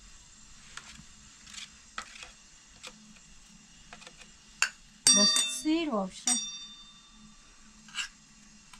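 Light clinks and taps of dishes, with a ringing clink a little after six seconds in. About five seconds in comes a short, loud call with a wavering pitch.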